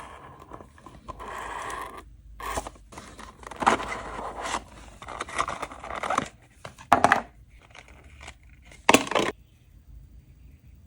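Hands opening the packaging of a 1:64 diecast model car: cardboard and plastic scraping and rustling, broken by several sharp snaps and clicks.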